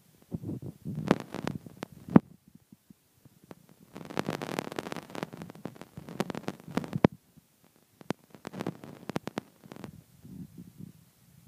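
Handling noise: muffled rubbing and sharp clicks right at the microphone, in three bursts of a couple of seconds each with short quiet gaps, as the phone is held and shifted against a plastic tub.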